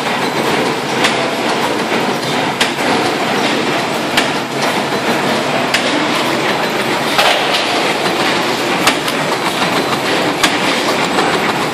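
Damol FMU 1.7 CNC spring and wire-forming machine running in production, forming 1.40 mm wire: a steady mechanical clatter with a sharper click about every one and a half seconds.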